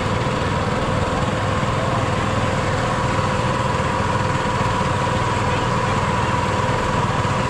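A small engine running steadily at an even speed, with a constant drone and a steady whine above it.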